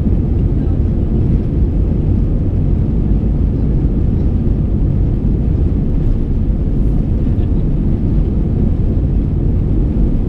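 Airbus A320 takeoff roll heard from inside the cabin: a steady, loud low rumble of the two CFM engines at takeoff thrust, mixed with the wheels running on the runway.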